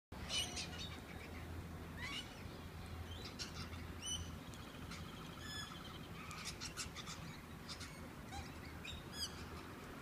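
A flock of galahs calling: short, high calls at irregular intervals, several sliding down in pitch.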